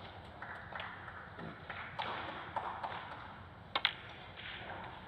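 Snooker balls clicking as a shot is played on the black: the cue strikes the cue ball and it knocks the black toward a corner pocket. A sharp click about four seconds in is the loudest sound, over a faint murmur.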